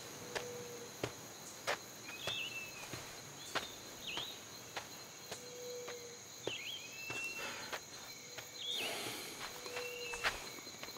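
Forest ambience: a bird repeating a call of a quick dipping chirp followed by a long, level whistle, about three times, over a constant high insect drone, with scattered sharp footstep clicks on a dirt path.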